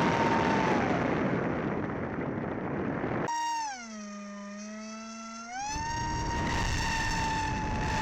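RC plane's motor whining steadily over wind rush. About three seconds in the wind noise drops away, and the whine falls in pitch and rises again about two seconds later as the throttle comes back up, before the wind rush returns.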